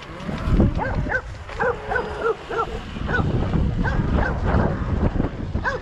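Dogs barking in a quick run of short barks, about two or three a second, over a low rumble.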